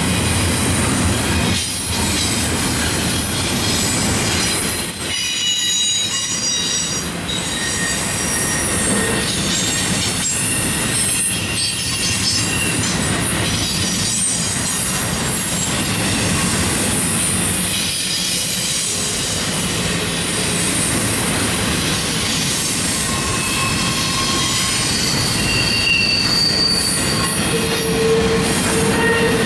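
Double-stack intermodal freight cars rolling past on a curve, their steel wheels squealing against the rails in high-pitched tones that come and go over a steady rumble of wheels on track. The squeal is flange squeal from the curve.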